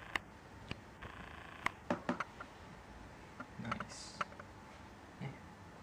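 Irregular clicks and taps of a new HP Pavilion G6 laptop being handled: keys pressed and the plastic casing touched, in uneven groups. Brief rustling comes about a second in and again around four seconds in.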